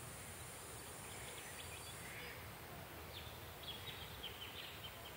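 Faint outdoor ambience by a lake: a low, even background hiss, with a few faint, short high chirping calls in the second half.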